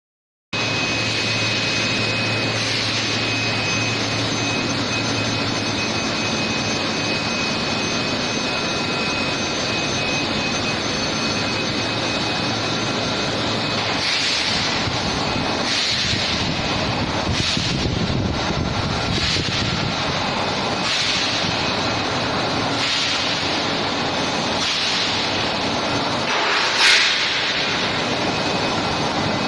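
Continuous casting furnace with induction heating running: a steady industrial din with a constant high whine and a low hum. From about halfway, hissing surges recur every second or two, and near the end comes one brief, louder rising squeal.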